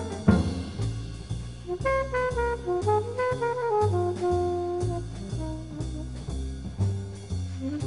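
Background music: an instrumental tune with a moving melody over a steady, rhythmic bass line.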